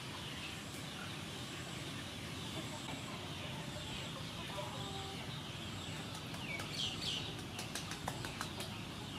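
Chickens clucking faintly over a steady background hiss, with two short curving calls about two-thirds of the way in and a few light clicks near the end.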